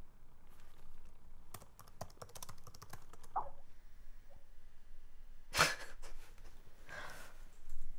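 Typing on a laptop keyboard: a quick run of keystroke clicks in the first half, then a short, louder rush of noise about five and a half seconds in and a fainter one near the end.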